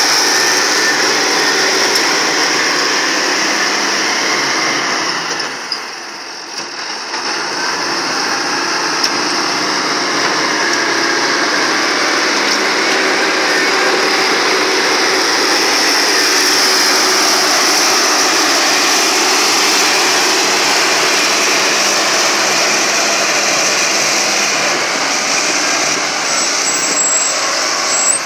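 International 530 excavator engine running steadily under work. The sound dips for a moment about six seconds in and then comes back up.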